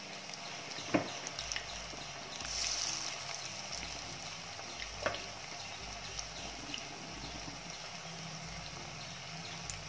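Batter-coated chicken pieces deep-frying in hot oil in a wok: a steady sizzle with small crackles. The sizzle swells about two and a half seconds in as another piece goes into the oil, and there are sharp clicks about a second in and again about five seconds in.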